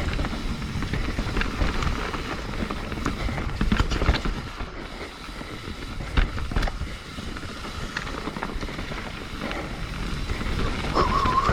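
Mountain bike riding down a dirt trail: tyres rolling over the ground with a steady rumble, and the bike rattling with many short clicks and knocks.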